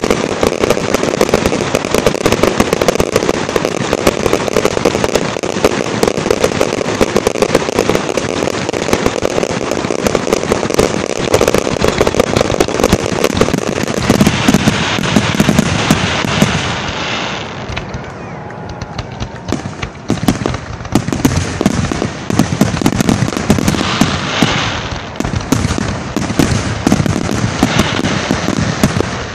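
Fireworks finale: a dense, continuous barrage of aerial shell bursts and crackling. The barrage eases briefly about eighteen seconds in, then picks up again.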